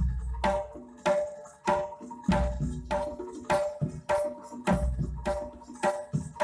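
Javanese jaranan gamelan music: a hand drum and ringing struck metal notes on a steady beat, about one stroke every 0.6 s, with a deep low stroke about every two and a half seconds.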